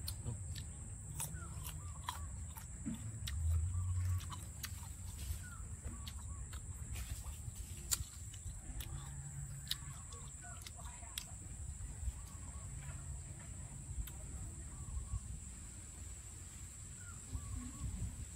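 Chewing of crisp green mango, with many small scattered clicks. Faint short bird calls sound now and then in the background.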